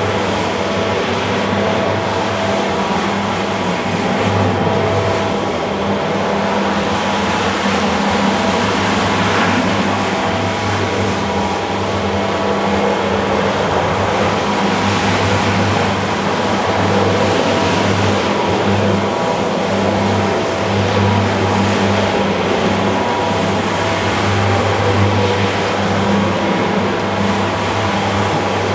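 Rotary floor scrubber running steadily over a wet, soapy rug: an even motor hum with the brush scrubbing through the shampoo foam.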